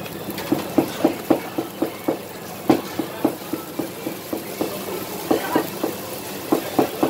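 Metal tongs clicking and clacking against each other and a large flat metal griddle pan as round pan-fried buns are picked up and turned, about three sharp clicks a second, over a steady background noise.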